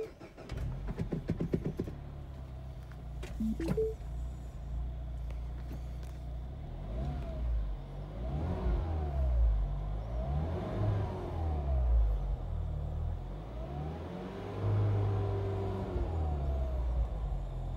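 2008 Mini Cooper S R56's N14 1.6-litre turbocharged four-cylinder engine cranking on the starter and catching within the first two seconds, then idling, heard from inside the cabin. From about seven seconds in it is revved in several blips, each rising and falling back to idle. A few short dashboard chime tones sound about three and a half seconds in.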